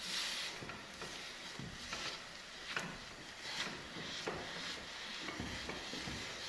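A wooden spoon stirring and pressing stiff ugali (maize-meal porridge) in a stainless-steel saucepan. It makes a series of short scraping strokes against the pot, roughly one every half second to a second.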